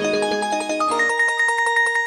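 Samsung SPH-A840 phone playing a ringtone: a quick run of musical notes, then a held chord about a second in that starts to fade away.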